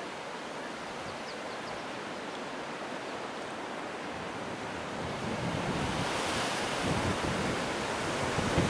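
Strong wind rushing over the microphone, joined from about five seconds in by the growing low rumble of an approaching Boeing 737-800 jet on final approach, the whole getting steadily louder and more gusty.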